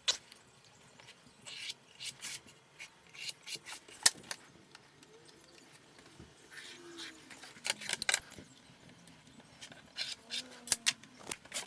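Scattered clicks, knocks and short scrapes of tools and wooden panels being handled and set down on a workbench.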